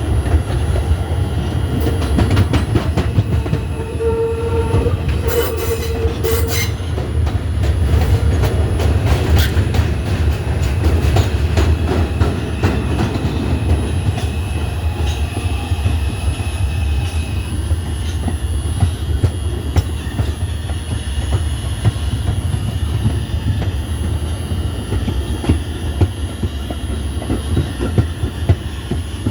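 R142 subway train running along the track: a steady low rumble with the clicking of wheels over rail joints. A brief held tone sounds about four to seven seconds in.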